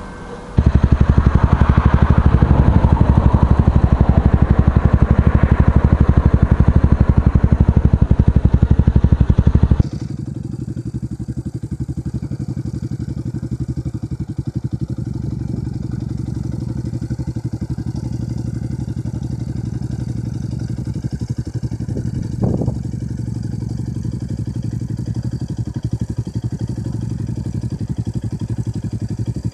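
125 cc single-cylinder motorcycle engine running, loud and close, with a rapid, even pulse. About ten seconds in the sound cuts abruptly to a quieter recording of the engine running steadily.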